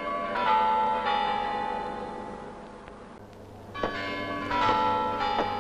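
Kremlin Spasskaya Tower clock bells chiming. A few notes are struck at the start, then a quicker run of notes about four seconds in, each left ringing and fading.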